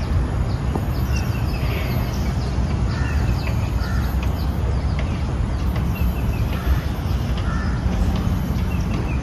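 Outdoor birds calling over and over, a short call about once a second, with scattered higher chirps, over a steady low rumble.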